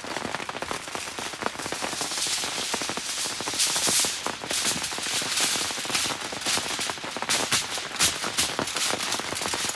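Aluminum foil crinkling and crackling as a salmon packet is folded and wrapped, over steady rain, with the loudest crackling about two to four seconds in.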